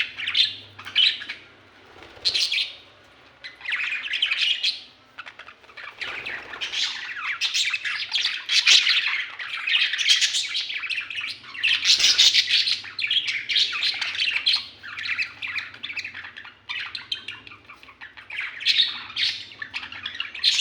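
Budgerigars chattering and chirping in bursts with short pauses between them.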